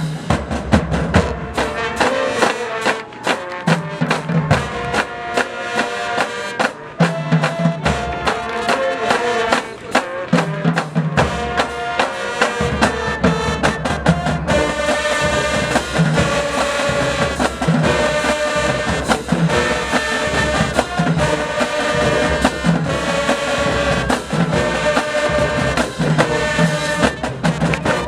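High school marching band playing: brass over a drumline with regular bass drum hits. The sound fills out with more brass about halfway through.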